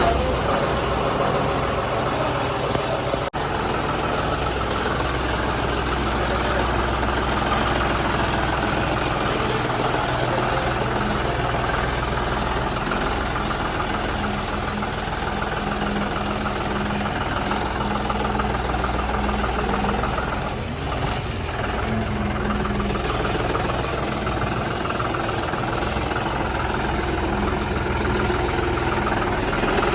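Tractor diesel engine running steadily at idle.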